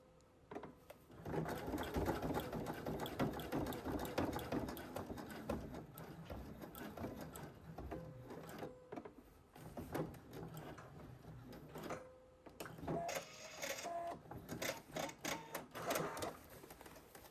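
Sewing machine stitching through the denim waistband of jeans with heavy topstitching thread and a jeans needle, starting about a second in and running in stretches with short pauses.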